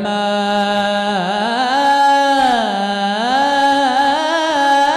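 A young male voice singing an Islamic ibtihal (devotional chant) solo, drawing one vowel out into a long melisma that glides up, then down, then up again in pitch.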